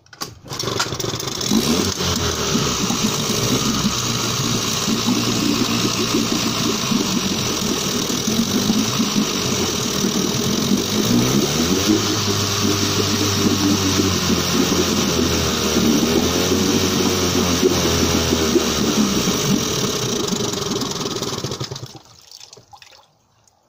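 1977 Suzuki DT9.9 two-stroke twin outboard starting with a pull on the starter rope, catching at once and running, revved up and down on the tiller throttle with its propeller churning the water in a test tank. It cuts out suddenly about 22 seconds in.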